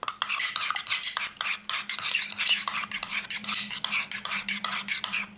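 Slime kit ooze base and reactor being stirred together in a container, a fast, continuous run of clicks and scrapes as the mixture sets into slime.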